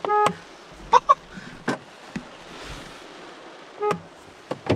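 Mazda car horn honking briefly as the horn pad is pressed, then a second, shorter toot near the end.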